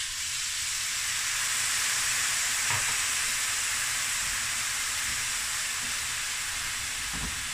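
Water poured into a hot stainless-steel pan of browned chicken drippings and spices, sizzling and hissing steadily as it deglazes the pan; the sizzle eases slightly near the end.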